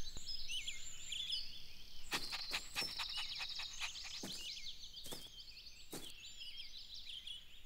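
Outdoor bird ambience: many small birds chirping and twittering, with a quick trill about three seconds in. Several soft taps are scattered through.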